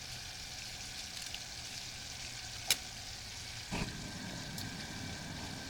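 A whole turkey deep-frying in hot oil: a steady sizzling hiss, with one sharp click about halfway through.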